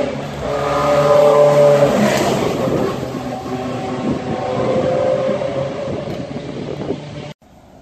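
Race car engine passing close by. Its note builds to a peak about two seconds in, then goes on lower and rougher, and the sound cuts off abruptly near the end.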